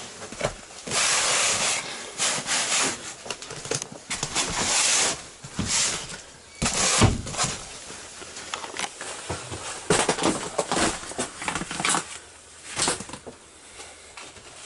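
Rustling and rubbing of motocross riding gear (cloth bags, boots, knee braces) being handled close to the microphone, in irregular bursts with several sharp knocks, the loudest about seven seconds in.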